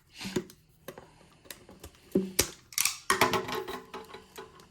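Cardboard trading-card box being handled and opened: light clicks and knocks with scraping and rubbing of the packaging as the lid and insert are worked loose.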